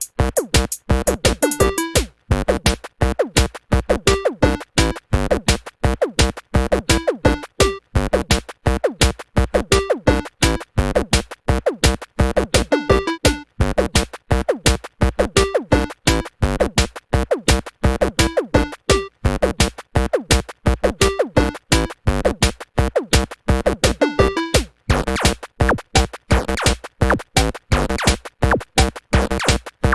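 Electronic music with a steady drum-machine beat and synthesizer tones.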